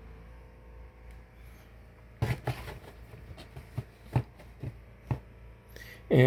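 Hands handling objects: about two seconds in, a quiet room hum gives way to a run of irregular rustles, clicks and knocks.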